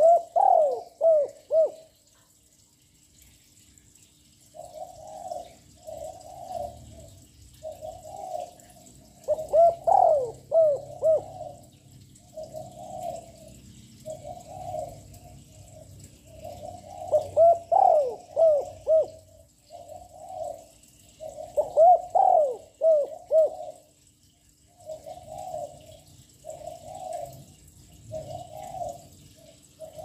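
Young spotted dove singing its cooing song. Four loud phrases of coos come several seconds apart, and softer single coos repeat about once a second between them.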